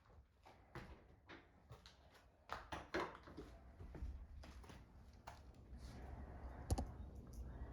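Faint, scattered light knocks and clicks, with a low steady hum starting about four seconds in.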